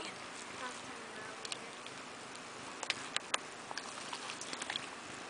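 Footsteps on wet grass and mud at a creek edge: a few sharp crackles and snaps about three seconds in, then lighter ticks, over a faint steady outdoor hiss.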